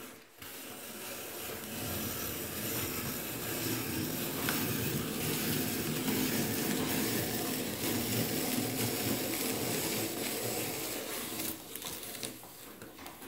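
Hand-cranked apple peeler-corer-slicer in use: the crank turns the threaded shaft while the blades peel and spiral-slice the apple, a continuous grinding, cutting sound. It starts about half a second in, builds over the first couple of seconds and stops a little before the end.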